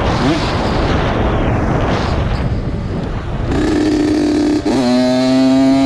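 Honda CR80's 80cc two-stroke single-cylinder engine being ridden, first mostly buried in wind rush, then heard plainly from about three and a half seconds in as a steady buzzing note held at constant revs, which dips a little just before five seconds and holds again.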